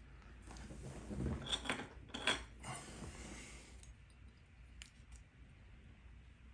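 Small metal lock parts and tools clinking and scraping against each other while a lock cylinder is taken apart, a flurry of sharp clicks loudest about one and a half to two and a half seconds in, then a single faint click near five seconds.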